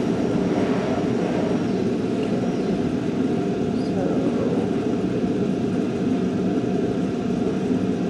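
Steady background noise of a busy classroom: students' voices chattering over a constant room rumble.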